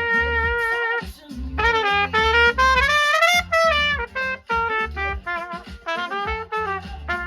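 Music with a brass or saxophone-like lead melody over a bass line: a long held note, then a sliding, rising and falling phrase.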